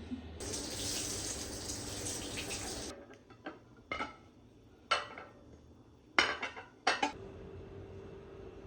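Tap water running for a couple of seconds, then a few sharp clinks of dishes and cutlery being handled, followed by a steady low hum.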